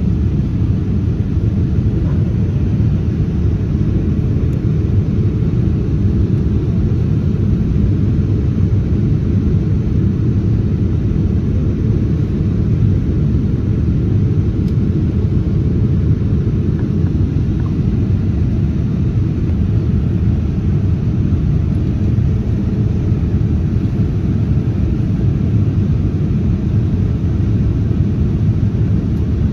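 Steady low rumble of engines and airflow heard inside the cabin of a Boeing 787-9 airliner in flight.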